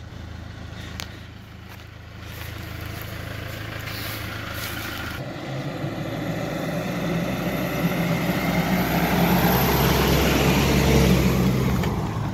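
A four-wheel drive towing a Jayco camper trailer, its engine running under load with tyre and road noise. After a quieter first few seconds, the sound grows steadily louder as the rig approaches, is loudest as it passes close by, and drops away just before the end.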